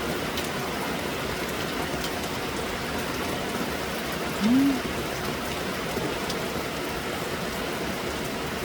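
Steady rainy-season rain falling, with scattered drips ticking now and then. About halfway through, a short voiced hum rises and falls.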